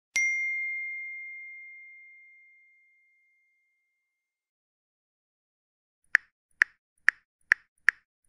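A single bright ding just after the start, one clear bell-like tone ringing out and fading over about three seconds. From about six seconds in come short sharp plop-like ticks, about two a second.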